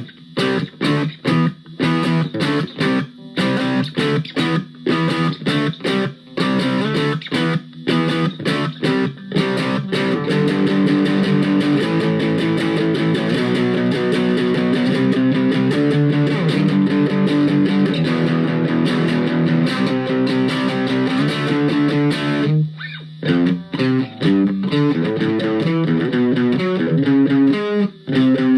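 Fender Stratocaster played through a Blackstar Superfly battery-powered amp with distortion and the reverb switched off, giving a dry tone. Short, choppy chords with gaps between them for about the first ten seconds, then sustained chords, broken by a brief stop about 23 seconds in.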